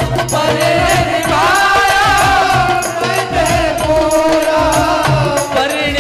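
Live devotional bhajan music: a held, wavering melody over a steady drum beat and bass.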